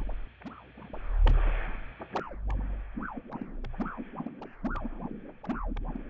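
Ambient electronic soundscape: a few deep low thuds, many short sliding tones that rise and fall, and scattered sharp clicks.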